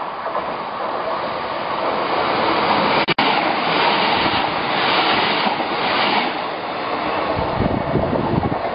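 Passenger train running through a station at speed close by: a rush of noise that builds as it approaches, then a loud rush with a rhythmic clatter of wheels over the rails as the carriages pass, easing off near the end with some low buffeting. A sharp click and brief break in the sound about three seconds in.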